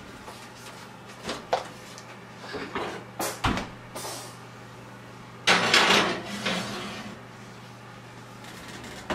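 Clunks and clatter of a covered ceramic casserole dish being set onto a metal oven rack and pushed into the oven, with a louder scraping rush about halfway through. A steady low hum runs underneath.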